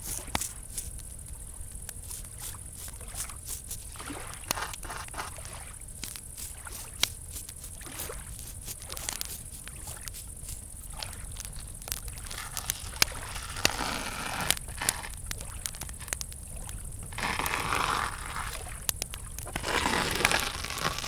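Wood fire crackling with many sharp pops, under the steady high chirring of crickets. Gentle lake water laps in soft swishes, more often in the second half.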